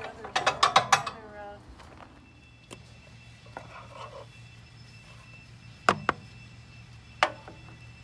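A quick run of sharp mechanical clicks and rattles in the first second, then quiet handling with two sharp plastic knocks near the end, as the air filter cover on the chipper's small engine is worked loose and taken off.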